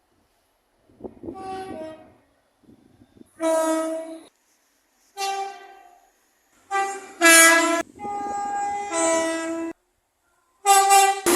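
Train air horn sounding a series of about six separate blasts, each a chord of several steady notes at once, starting and stopping sharply with silent gaps between. The first blast, about a second in, is faint, and the loudest comes a little past the middle.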